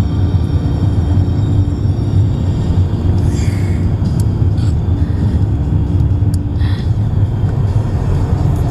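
Steady low road rumble inside a moving car's cabin, with a held hum coming and going over it.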